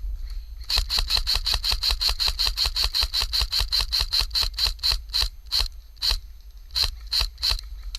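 Airsoft gun firing a fast, even string of about two dozen shots, about six a second, followed near the end by a handful of slower single shots.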